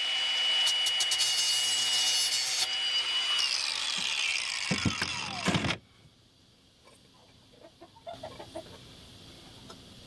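Cordless angle grinder cutting through a steel support bar with a steady high whine, then released about three seconds in so the disc spins down in a falling whine until it stops near the middle. A few faint handling clicks follow.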